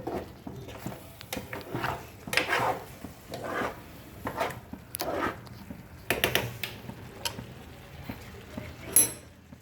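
Spoon scraping and clinking against a cooking pan at irregular intervals while curry is stirred, with a sharp clink near the end.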